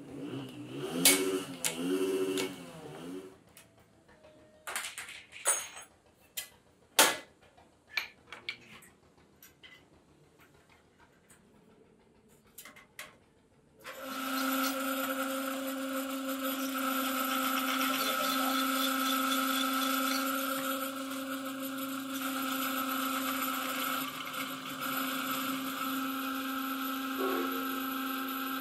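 Scattered metal clanks and knocks as clutch plate parts are handled. About halfway through, a bench drill press starts and runs with a steady whirring hum while drilling out the rivets of a truck clutch plate.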